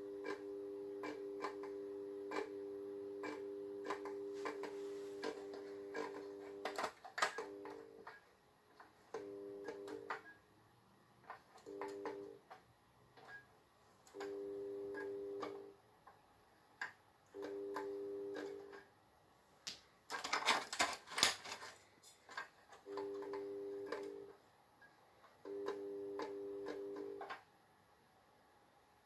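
Switch-start fluorescent fitting with a failing Philips TLD 18W/33 T8 tube that won't strike. The magnetic ballast hums, first steadily and then in spells of one to two seconds as the glow starter keeps heating the cathodes. Sharp starter clicks come throughout, with a louder crackling burst about two-thirds of the way in.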